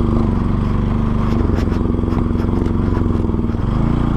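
Bajaj Pulsar NS200's single-cylinder engine running steadily while the motorcycle is ridden, with a few faint clicks around the middle. The engine note shifts briefly near the end.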